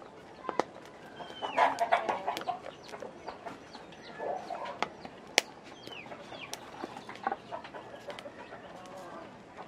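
Chickens clucking in bursts, loudest a couple of seconds in, with short high chirps and scattered sharp clicks.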